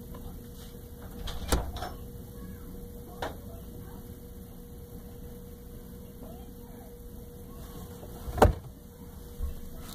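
A few sharp knocks and bumps in a wooden sink cabinet with a cat moving about inside. The loudest comes about eight seconds in, as the cat pushes up against the camera, over a faint steady hum.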